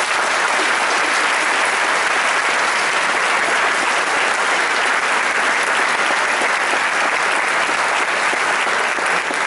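A large audience applauding: dense, steady clapping.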